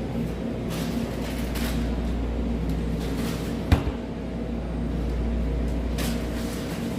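Steady low hum of store refrigeration cases with light rustling, and a single sharp knock a little past halfway.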